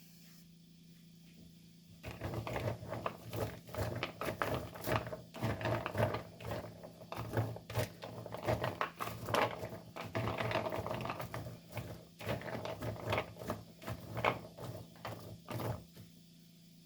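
Rapid, irregular clicking and knocking from kitchen food preparation of falafel ingredients. It starts about two seconds in and stops shortly before the end, over a faint steady hum.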